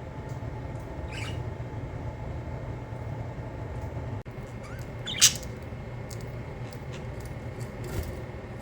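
Budgerigars giving a short chirp and then, about five seconds in, one loud sharp call, with scattered faint ticks, over a steady low hum.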